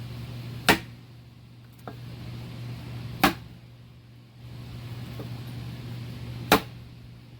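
Three sharp hammer blows, a few seconds apart, with a couple of light knocks between them, over a steady low hum.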